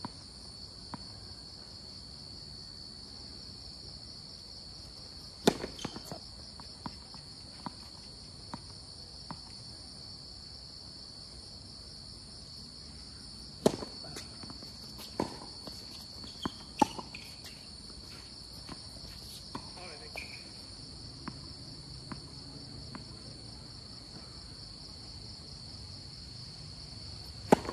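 Tennis rally on a hard court: scattered sharp pops of racket strikes and ball bounces, loudest about five seconds in and again near the middle, with a quick cluster just after. Under it runs the steady high chirring of night insects, likely crickets.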